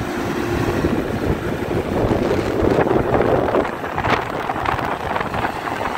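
Sonalika 60 RX turbo-intercooled diesel tractor running steadily under load as its rotavator churns through a flooded rice paddy, with wind buffeting the microphone.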